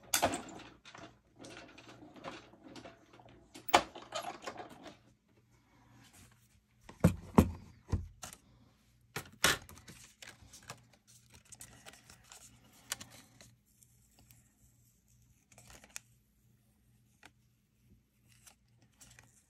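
Die-cutting plates with dies and cardstock being handled and run through a cut-and-emboss machine: scattered clicks and knocks of the plates, a few heavier thumps about seven to eight seconds in, and light rustling of paper.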